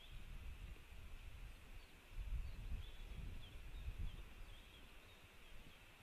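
Wind buffeting the microphone in gusts, strongest a couple of seconds in, with faint, short high-pitched bird chirps scattered through the middle.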